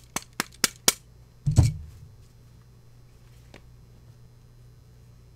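Hand work on a door hinge's button tip: five quick sharp taps, about four a second, then one heavier knock with a rustle of cloth about a second and a half in.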